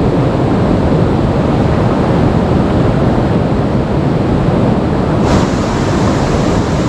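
Steady rushing of river water, with a low rumble of wind on the microphone. A brief click about five seconds in.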